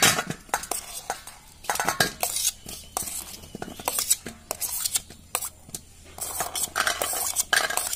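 Metal spoon scraping and clinking against a stainless steel plate and bowl as boiled potato pieces are tipped into the bowl, in several bursts of scrapes and knocks; near the end boiled chickpeas are brought over to be scraped in.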